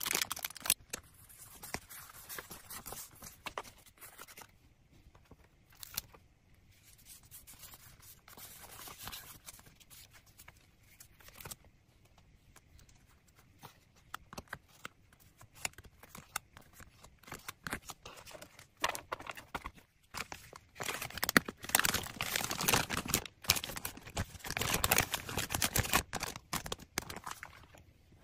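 Plastic wrappers and clear plastic bags crinkling and rustling as small packaged items are handled and packed by hand, with light scraping of paper sticker sheets. The rustling is irregular, soft through the middle and louder for several seconds near the end.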